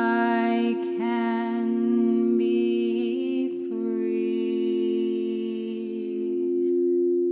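A voice sings long, wordless held notes in four slow phrases over a steady singing-bowl drone that rings on beneath it.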